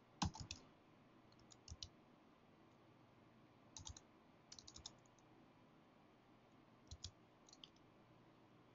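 Faint, sporadic keystrokes on a computer keyboard: single taps and short runs of clicks with near silence between.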